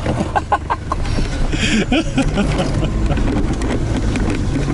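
Toyota Hilux engine running steadily as the truck drives off-road, heard from inside the cab, with knocks and rattles as it jolts over rough ground and a brief rushing hiss about two seconds in.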